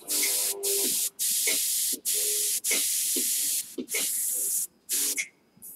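Airbrush hissing as it sprays paint in long bursts, the trigger let off for brief breaks between them, then two short puffs near the end.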